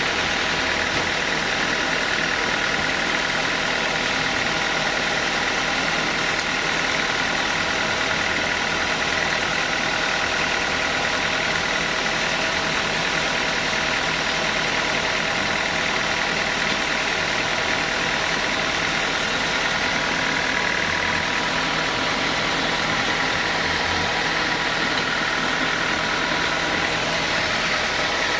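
Sawmill machinery running steadily, a constant mechanical hum with a high whine.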